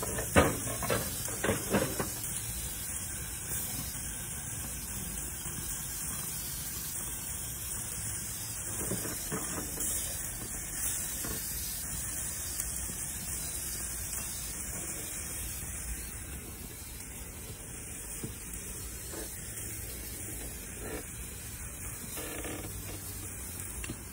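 Beef skewers and steaks sizzling steadily on a gas grill's grates, with a couple of sharp clicks in the first two seconds.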